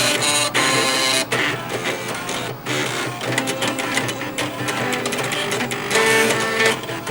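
Floppy disk drive stepper motors playing a melody as buzzy, mechanical notes that change pitch in quick succession, with rapid clicking from the drive heads.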